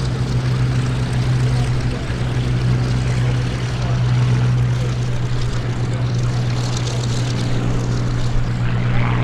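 Supermarine Spitfire Mk I's Rolls-Royce Merlin V12 engine at take-off power as the fighter lifts off, a loud steady drone.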